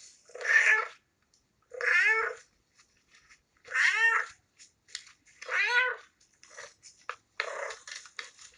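Kitten meowing repeatedly: four loud meows about two seconds apart, then several shorter, softer calls near the end.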